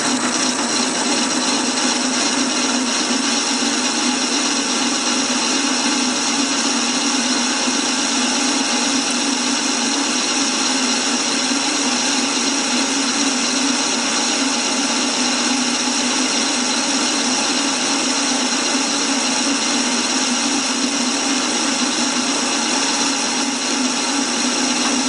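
Metal lathe spindle running while a 3 mm parting-off tool cuts into a spinning workpiece: a steady machining sound with no chatter, the spindle bearings having just been re-adjusted to cure the chatter.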